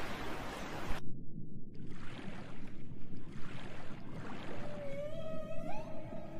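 Waves for about a second, then low rumbling underwater ambience with soft swells. About four and a half seconds in, a humpback whale call begins: one long tone that rises in pitch and then holds steady.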